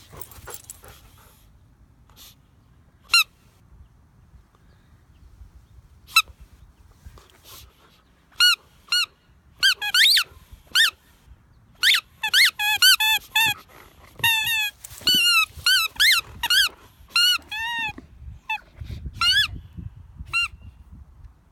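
A dog chewing a red rubber squeaky toy, making it squeak: a few single squeaks at first, then a quick run of squeaks in the middle, each bending up and down in pitch, and a last few near the end.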